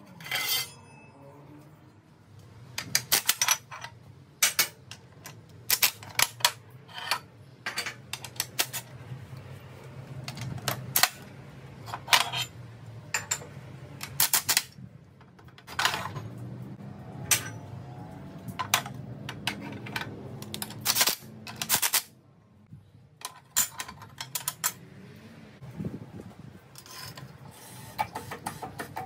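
Thin galvanized sheet-metal pieces clinking and clanking against the steel bending brake of a shop press as they are handled and positioned, many sharp irregular metallic strikes over a steady low hum.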